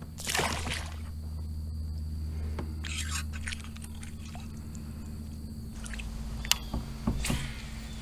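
A small northern pike splashing back into the water as it is released, about half a second in, followed by light water splashes and a few short ticks.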